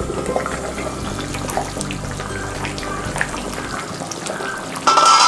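Crab curry boiling hard in an open kadai: a steady, dense bubbling with many small pops. Near the end comes a brief, loud clatter.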